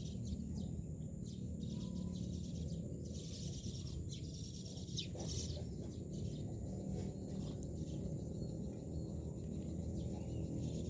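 Myna birds chirping in short, scattered high calls over a steady low background rumble.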